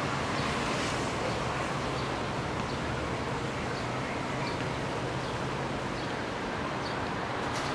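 Steady outdoor traffic noise, with faint short bird chirps now and then.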